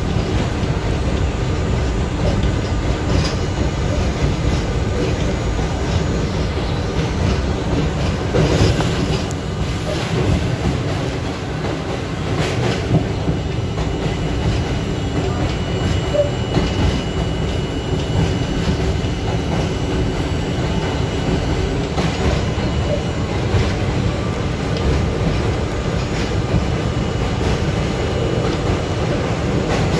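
An R32 subway car running at steady speed, heard from inside the car: a constant low rumble of wheels on rail, with a few sharp clacks over rail joints. A faint high-pitched tone holds for several seconds about midway.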